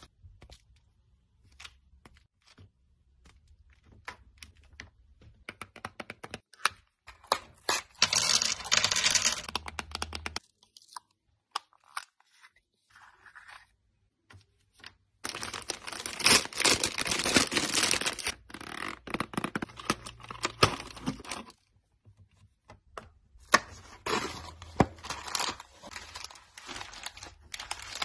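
Candy and chocolate wrappers being torn open and crinkled by hand, in a few spells of rustling with quiet gaps between them. Small clicks and taps come in between, as sweets are set down on a wooden board.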